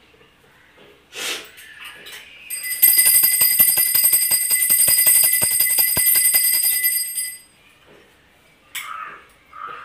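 Puja hand bell rung rapidly at a home shrine for about four seconds, a steady metallic ringing with quick, even clapper strikes, starting about three seconds in. A few soft knocks of items being handled come before and after it.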